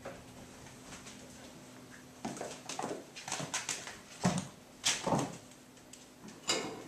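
Kittens scuffling during rough play: a run of quick scrabbling taps and scrapes starting about two seconds in, then three louder thumps.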